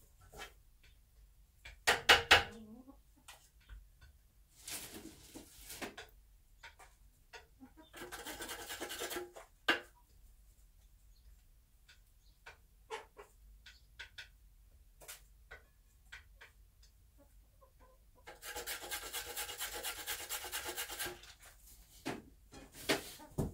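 Bantam hen in a nest box of grass and hay: scattered soft clicks and rustles, a sharp knock about two seconds in, and two longer raspy stretches, one about eight seconds in and one about nineteen seconds in.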